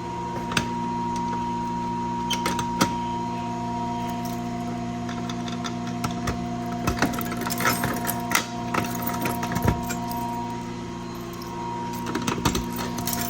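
A steady electrical hum of several unchanging tones, with irregular clicks, knocks and light clatter of hands handling equipment throughout.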